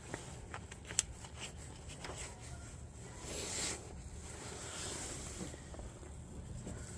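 Faint handling of the cable and heat-shrink tubing: a few sharp clicks, the strongest about a second in, then soft rustling swells over a low steady hum.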